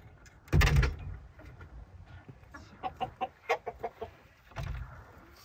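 Chickens clucking: a quick run of about eight short clucks in the middle, after a loud clatter about half a second in as the wooden coop door is unlatched and opened.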